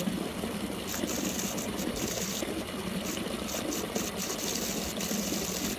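Steady watery noise as a horse drinks with its muzzle in the water, a continuous rushing, splashing sound.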